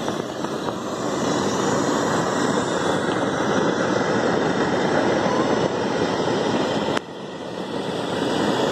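Gas burner blowing a steady flame up into the envelope of a large fabric hot-air balloon to fill it with hot air, a loud even rushing. The sound drops suddenly about seven seconds in and then builds back up.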